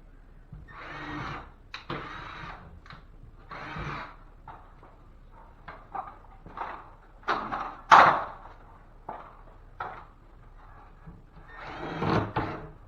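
Cordless drill driver running in short bursts, about four, as it drives screws into wood backing and drywall, between sharp wooden knocks and clatter, the loudest knock about eight seconds in.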